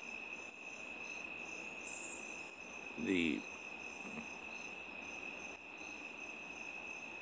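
Crickets chirping steadily in the background, a continuous high trill. About three seconds in, a man makes a short wordless vocal sound.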